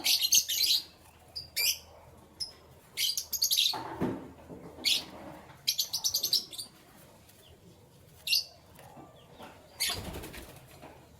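Canaries fluttering their wings in short bursts of rapid flaps, about seven times, mixed with a few short chirps.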